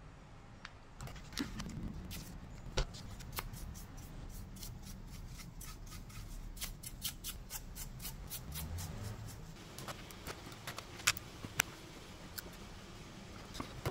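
Small clicks, taps and rubbing from a 2012 Mac Mini being taken apart by hand: the hard drive in its metal bracket handled, dust brushed off the logic board with a soft brush, and a small screwdriver worked on the board. The clicks come thickest in the middle, with a few louder ones late on.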